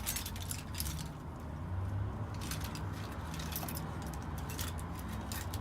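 Hand tools being rummaged and handled on a workbench: scattered light metallic clicks and rattles in small clusters, over a steady low hum.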